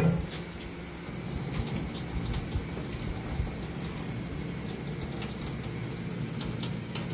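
Tap water running steadily into a utility sink while a dog's water bowl is washed, with a single knock at the start.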